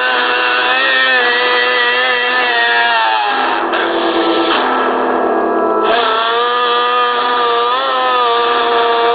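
Recorded music of long, held notes that bend slowly in pitch, layered in harmony. Around the middle it thins for a couple of seconds to a few steady notes, then the bending tones return.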